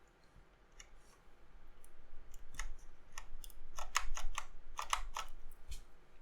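Plastic keycaps being pressed onto the switches of an ErgoDox EZ mechanical keyboard: a run of sharp plastic clicks, thickest between about three and a half and five seconds in.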